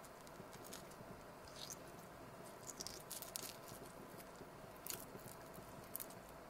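Boiled quail eggshells being cracked and peeled off by hand: faint, scattered small crackles, with a cluster about three seconds in.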